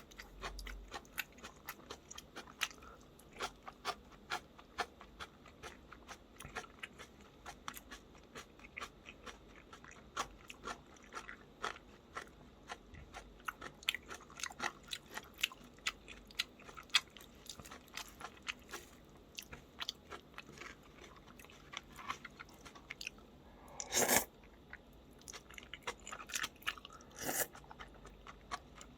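Close-miked mukbang eating sounds: a person chewing and biting food with many quick crunchy clicks, and one louder, longer noise near the end.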